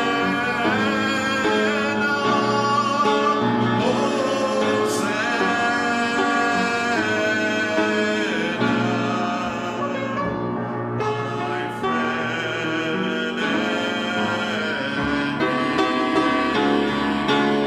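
Worship music: a band playing a song with voices singing over it.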